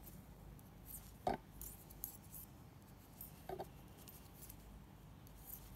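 Knitting needles clicking faintly against each other as stitches are knitted, with a few light clicks, the clearest about a second in and another in the middle.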